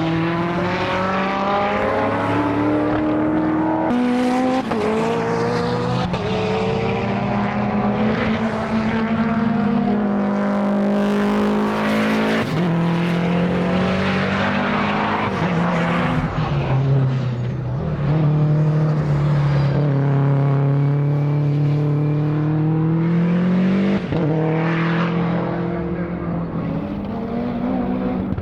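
Race car engine running hard on track. Its pitch climbs and then drops sharply again and again, as with gear changes. There is a longer dip and climb about two-thirds of the way in.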